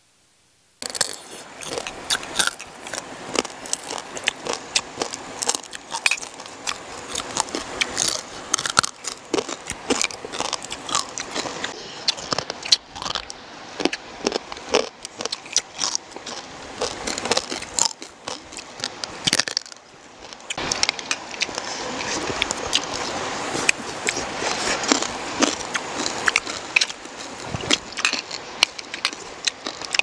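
Close-up eating sounds: people chewing and crunching stir-fried field crabs with rice, a dense, irregular run of sharp crunches and clicks that starts suddenly about a second in.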